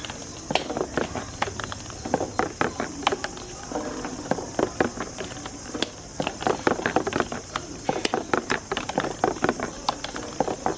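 Marbles on a marble run, clicking and clattering against the track and each other in rapid, irregular knocks throughout.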